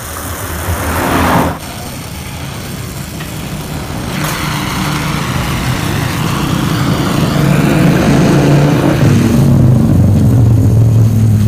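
Motorcycle engine, a two-stroke from the Yamaha RX-King being worked on, running and revving through its exhaust. A loud burst cuts off suddenly about a second and a half in; after that the engine grows steadily louder for several seconds and then holds.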